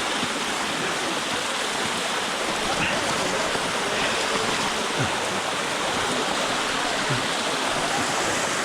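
Steady rush of falling mountain water from a waterfall, an even hiss spread across low and high pitches.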